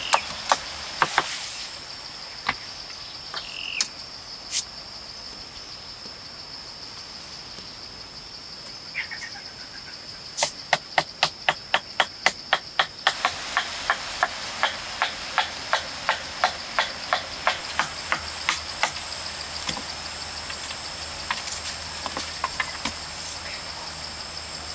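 Repeated sharp strikes of a hand tool digging into the soil: a few near the start, a quick run of about four a second a little before the middle, then steadier strikes roughly every half second. Under them, a steady high-pitched drone of forest insects.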